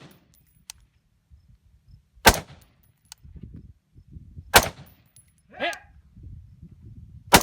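Rifle shots, three sharp reports a little over two seconds apart. Between the second and third there is a short sound that falls in pitch.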